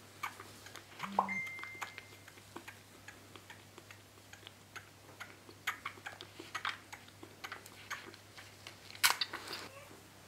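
Two-month-old maned wolf cub suckling from a feeding bottle's teat: irregular sucking and smacking clicks, with a louder click about nine seconds in.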